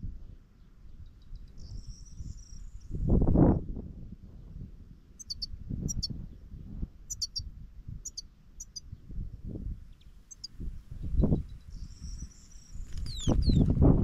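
Wind gusting on the microphone in low rumbles, loudest about three seconds in and again near the end, over short high-pitched chirps from small songbirds that come in a run about five to nine seconds in, with a high buzzy twitter twice.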